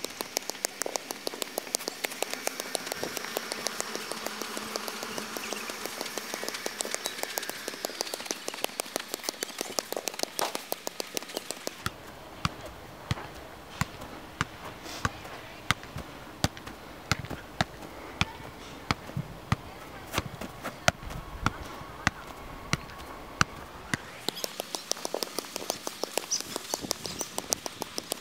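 Light rain pattering, many small irregular ticks a second over a soft hiss. The background shifts abruptly about 12 and 24 seconds in, where the ticks thin out to a few sharper ones a second and then grow dense again.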